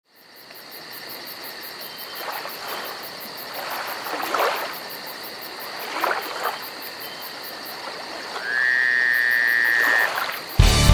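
Night-time chorus of insects and frogs: a steady high pulsing hum from insects, with scattered calls and one louder, steady high-pitched trill lasting about a second and a half near the end. Music starts just before the end.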